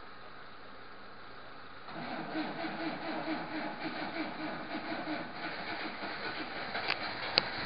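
A Moskvich-type engine comes to life about two seconds in and runs unevenly. Two sharp clacks come near the end.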